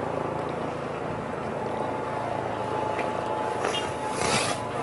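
A steady low engine drone under a rushing outdoor hiss, with a short louder rush about four seconds in.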